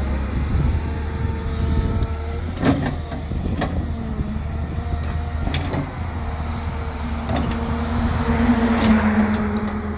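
Cat M318D wheeled excavator running: a steady diesel engine hum under a hydraulic whine that shifts in pitch, with several sharp knocks and a hiss swelling near the end.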